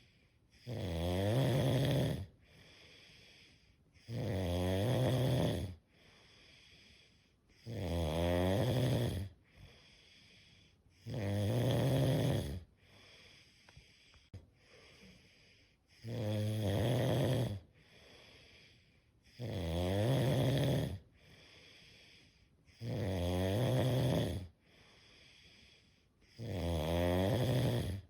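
Slow, regular snoring: eight long snores, each about a second and a half, coming roughly every three and a half seconds with quiet breathing in between.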